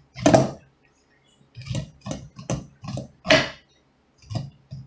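Kitchen knife cutting kernels off an ear of fresh sweet corn: a row of short slicing strokes down the cob, about eight in all, the loudest near the start and about three and a half seconds in.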